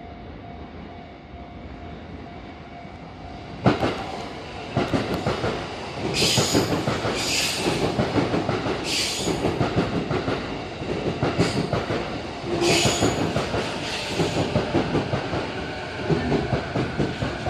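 Sotetsu E233-7000 series electric train running into a station platform as it slows to stop: quieter at first, then suddenly loud about three and a half seconds in as the train reaches the platform, with wheels clattering over the rails and repeated short bursts of high hissing noise as the cars go by.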